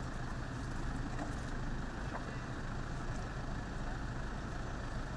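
An engine running with a steady low hum, under constant outdoor noise.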